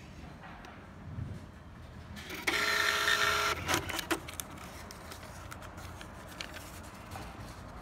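RG-P80B thermal receipt printer printing its settings page: a burst of motor whine and paper feed lasting a little over a second, starting about two and a half seconds in, followed by a few light clicks.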